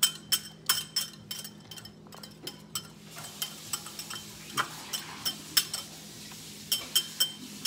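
Metal wire whisk beating raw eggs in a glass bowl: the wires clink against the glass several times a second, thinning out in the middle over a soft swish of the eggs, then a quick run of clinks near the end.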